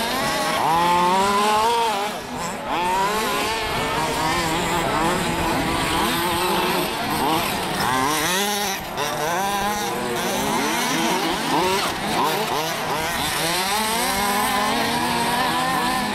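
Several large-scale RC off-road buggies' small two-stroke petrol engines racing, revving up and down in overlapping, rising and falling pitches.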